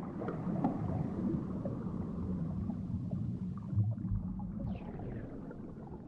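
Underwater breathing through an Aqua Lung Legend scuba regulator: exhaled bubbles rumble and crackle out of the exhaust valve, with a deeper thump about four seconds in.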